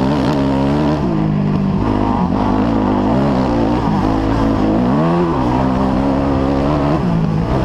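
Off-road dirt bike engine under race throttle, its pitch climbing and dropping repeatedly as the rider rolls on and off the gas.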